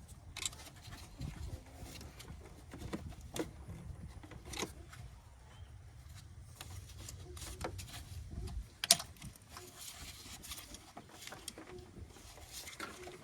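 Scattered clicks and knocks of hand tools and car parts being handled, with one sharp, loud click about nine seconds in, over a low rumble that stops just before it.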